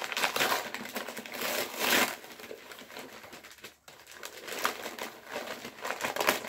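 Gift wrapping paper crinkling and rustling as it is pulled off a boxed figure, in uneven bursts with a short lull a little past halfway.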